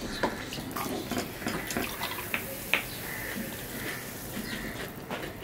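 7UP poured from a plastic bottle, a steady splash of liquid, with a couple of sharp clicks near the middle.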